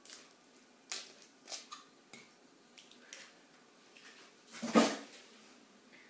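Eggshell being handled over a glass bowl while eggs are broken: a few faint small clicks, then a louder brief crackling rustle about five seconds in.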